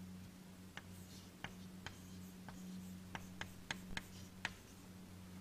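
Writing by hand: about ten short, sharp taps and strokes at an irregular pace as figures are written down, over a steady low electrical hum.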